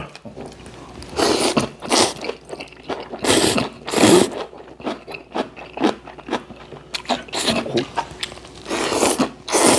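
Ramen noodles being slurped up from a bowl: a string of loud, short slurps, with quieter chewing between them.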